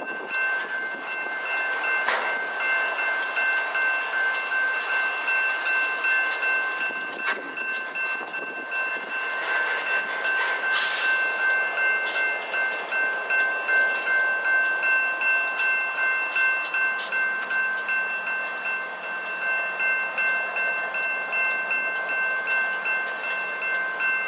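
Freight train rolling past, its wheels giving an even pulsing beat, with several steady high-pitched tones held over the rumble of the cars.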